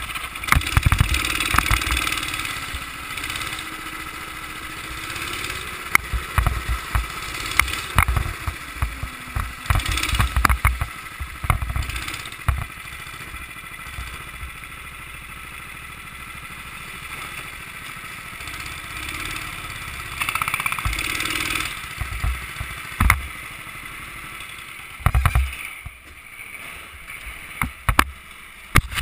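Go-kart engine running at low, varying revs for the first ten seconds or so, then running more quietly at low speed. Repeated short thumps and knocks sound throughout.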